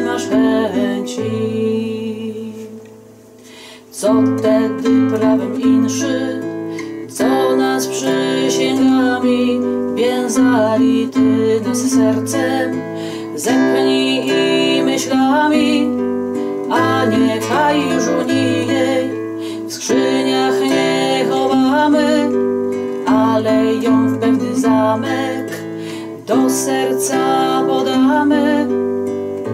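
Nylon-string classical guitar being played. The notes die away about two seconds in, and the playing starts again firmly at about four seconds.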